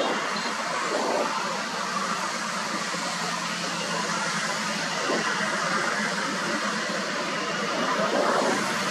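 Steady road traffic noise: a container semi-truck and other vehicles driving past, tyres and engines running with no sudden sounds.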